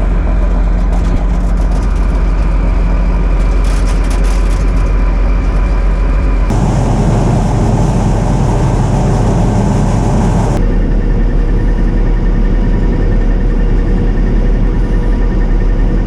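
Combine harvester running loud and steady, with a deep hum and steady whining tones; from about six and a half to ten and a half seconds in the noise grows heavier and fuller, then settles back.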